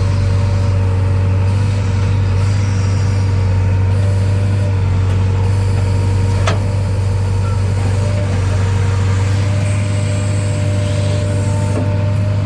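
JCB 3DX backhoe loader's diesel engine running steadily, with a single sharp click about halfway through.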